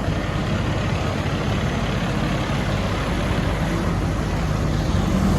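Fire truck engine running steadily with a low rumble.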